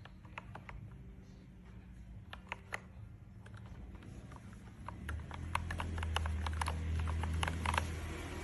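Keys of a LEAVEN H96 mechanical keyboard being pressed: a few scattered keystrokes, then a quicker run of typing from about five seconds in. A steady low hum comes in with the faster typing.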